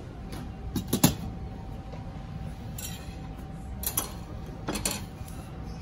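Stainless-steel hot pots clinking and knocking against their metal burner stands as they are set in place: a few sharp metallic clinks, the loudest about a second in, with more around four and five seconds in.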